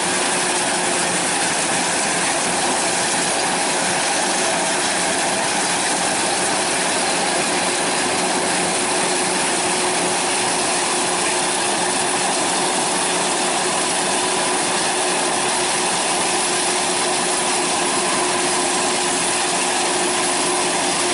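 A machine running steadily, a constant mechanical drone with a faint steady whine through it.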